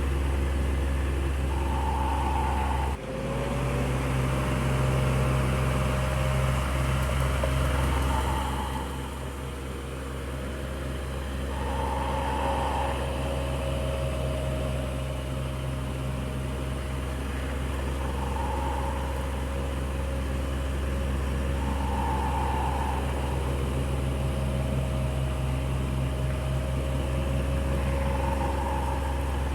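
Electric fan running with a steady motor hum and airy whir, with a faint tone that comes back every three seconds or so. The sound dips briefly about three seconds in.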